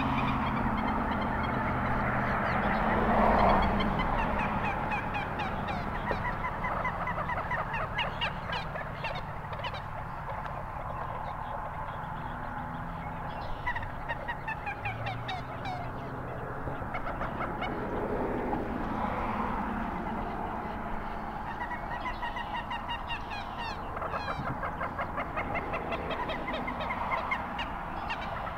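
Common gallinules calling in rapid runs of short clucking, cackling notes, repeated again and again, during an aggressive encounter on the water. A steady low rumble sits underneath.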